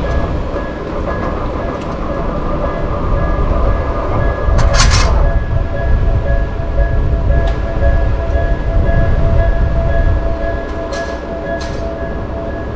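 Tokyu Oimachi Line electric commuter train running past a level crossing, with a steady rumble of wheels on the rails. A brief sharp high-pitched burst comes about five seconds in, and two short clicks near the end.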